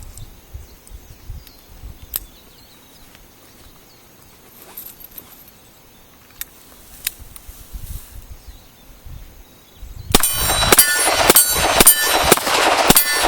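Colt Diamondback revolver firing .38 Special in a rapid string of shots near the end, with steel targets clanging and ringing from the hits. Before that, only a few faint clicks.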